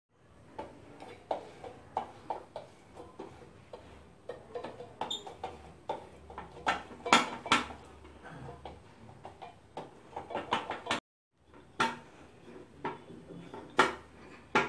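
Steel plate knocking and clattering against the counter while a thick jaggery mixture is pressed and spread flat on it by hand and with a rolling pin: many irregular sharp knocks, the loudest about seven seconds in.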